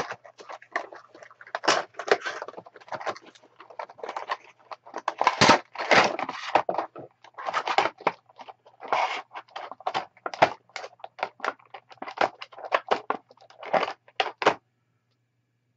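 Small cardboard toy boxes and their packing being opened and handled by hand: irregular rustling, crinkling and clicking that cuts off abruptly near the end.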